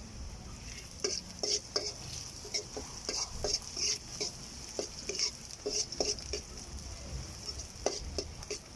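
Onions, garlic and black pepper frying in cooking oil in a pot, sizzling steadily. From about a second in, the food is stirred with quick, repeated scrapes and knocks against the pot.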